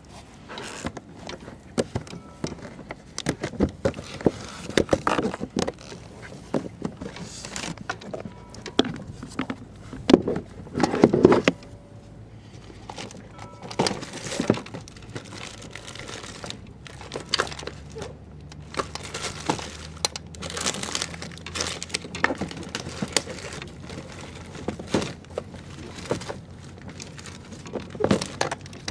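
Someone rummaging through gear on a kayak: irregular clicks, knocks and crinkling, with a couple of louder knocks about ten to eleven seconds in.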